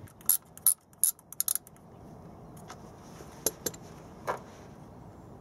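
Sharp metal clicks and clinks from a wrench and square drain-plug key working the sump drain plug: a quick run of clicks in the first second and a half, then a few single clicks.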